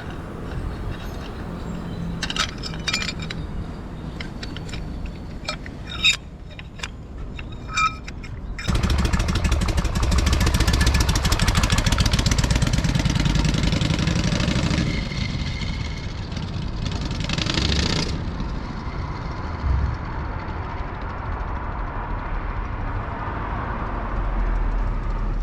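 Harley-Davidson Shovelhead V-twin idling with a few sharp clicks and clunks, then about nine seconds in it revs up and pulls away, running loud for several seconds before settling to a lower steady run. The owner attributes a noise this bike makes when pulling away in first gear to clutch judder.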